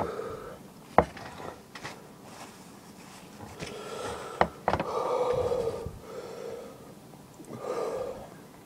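A man breathing hard through his open mouth, several long puffing breaths with the longest around the middle, from the burn of a superhot chili pepper he has just eaten. A few sharp clicks come about a second in and twice around four and a half seconds.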